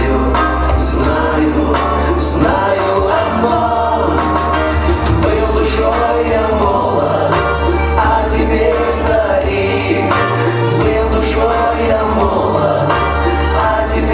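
Live band playing a slow lyrical song: a sung melody over guitar, keyboards, bass and light regular percussion.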